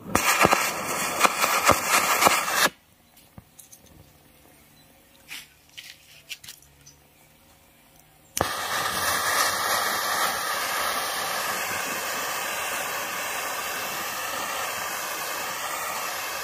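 Homemade acetylene torch, gas from calcium carbide and water fed through a syringe needle, burning with a steady hiss and some crackle. The hiss cuts off suddenly about three seconds in, leaving a quiet stretch with a few faint clicks, then starts again suddenly about eight seconds in and holds steady.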